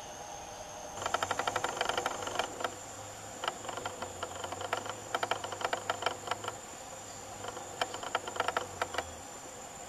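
Rainforest ambience with a steady high-pitched insect whine. From about a second in until near the end, bursts of rapid clicking rattles come and go.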